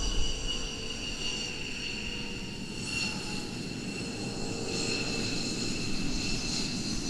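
F-15 Eagle's twin Pratt & Whitney F100 jet engines as the fighter rolls along the runway: a steady high turbine whine, falling slightly in pitch, over a low rumble.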